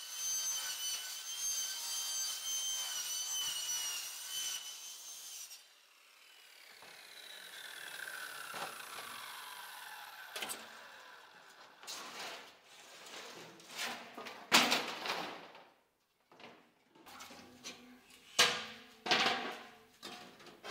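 A power saw runs with a steady high whine for about five seconds, then is switched off and winds down in a slowly falling whine. Scattered knocks and clatters follow, the loudest near the middle.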